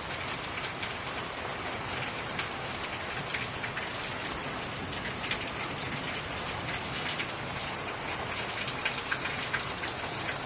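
Heavy rain pouring down steadily, with many sharp individual drop impacts sounding through the downpour.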